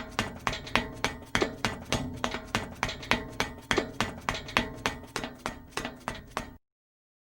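Rapid, evenly paced knocking or tapping, about four strikes a second, each with a short ring, that cuts off suddenly near the end.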